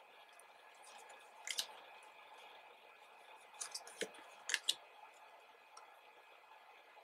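Stiff photo cards being handled and flipped through, giving a few sharp clicks and taps of card stock: a pair about a second and a half in, and a quick cluster around four to five seconds in.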